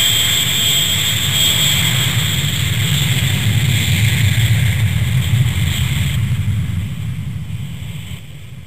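Propeller airliner's engines running: a steady low drone with a high whine, fading out over the last couple of seconds.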